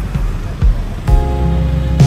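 Music with heavy low drum beats; a held chord comes in about a second in.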